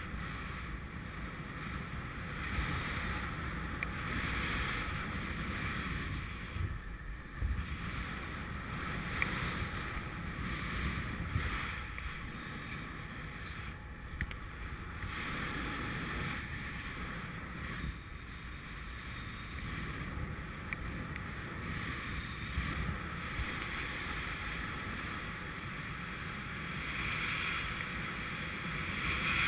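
Steady wind noise from air rushing over an action camera's microphone in paragliding flight, swelling and easing slightly.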